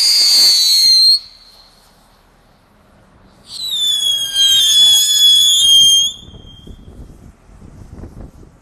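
Crazy Clock ground firework whistling. A shrill whistle cuts off about a second in, and after a short pause a second whistle of about three seconds slides slightly down in pitch. A fainter irregular crackle of burning sparks follows.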